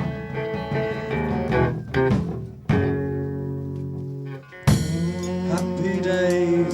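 Live band playing an instrumental passage on guitar and bass. A held chord fades away, then a loud new chord is struck almost five seconds in and rings on.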